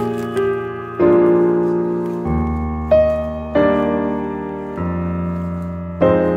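Background piano music: a slow piece with a new chord or note struck roughly every second and left to ring and fade.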